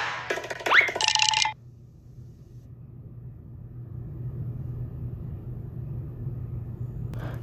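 A short burst of pitched sound with a rising, whistle-like glide and a couple of held tones, which stops about a second and a half in. After that comes a steady low electrical hum with faint hiss.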